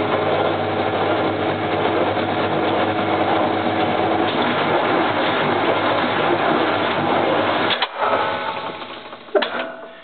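Washing machine's electric motor and belt drive running steadily, a loud mechanical hum and whir. About eight seconds in it cuts off abruptly and the sound fades, with a sharp click about a second and a half later.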